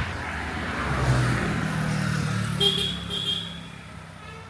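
A road vehicle passing close by, its engine hum and road noise swelling and then fading away. A short high-pitched tone sounds about two-thirds of the way through.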